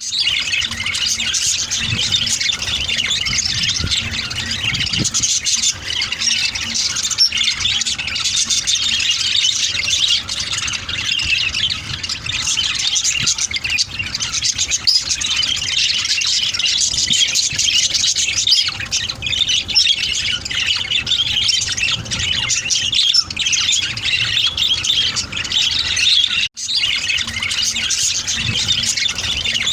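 A group of small pet parrots chattering and squawking continuously, many high, sharp calls overlapping.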